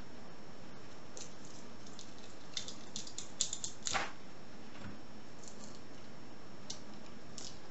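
Small metallic clicks and taps from a heavy American Lock padlock being handled, over a steady background hiss. The clicks come in a quick cluster from about one to four seconds in, ending in a firmer knock, with a few scattered ticks after.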